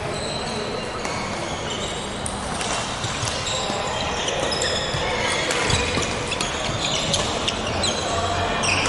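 Sports shoes squeaking on a wooden badminton court, with scattered sharp racket-on-shuttlecock hits, over the chatter of a busy indoor hall.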